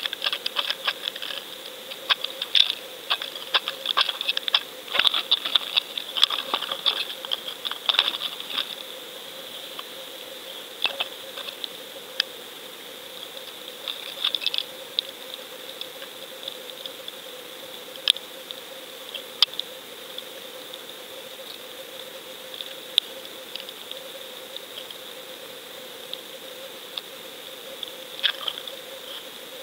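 Underwater sound picked up by a GoFish Cam fishing camera on the line: a steady faint whine with irregular sharp clicks and ticks, thick for the first eight seconds or so and then only every few seconds.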